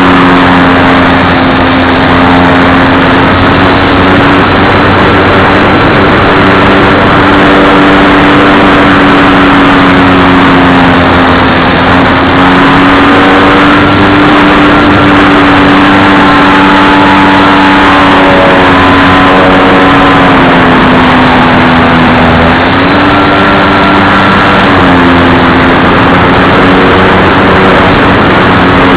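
Radio-controlled model plane's motor and propeller running at steady cruise throttle, a loud continuous drone with a rushing, wind-like hiss. Its pitch eases down a little a few times, near two-thirds of the way in and again near the end, as the throttle is changed.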